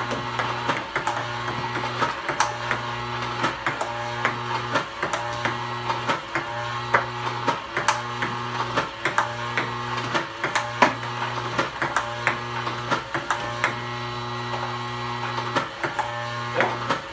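Table tennis balls from a ball robot being hit back repeatedly: a steady run of sharp clicks of ball on paddle and table over the constant electric buzz of the robot.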